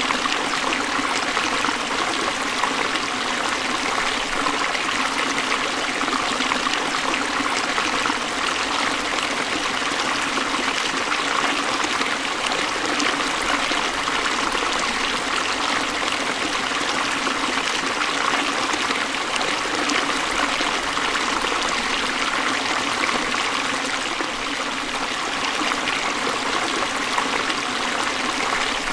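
Forest stream flowing steadily over rocks, a constant rushing and trickling of water.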